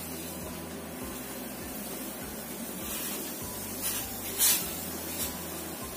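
Water boiling hard in a stainless steel saucepan, a steady bubbling hiss, as raw chicken thighs are put in to blanch. A brief splash about four and a half seconds in.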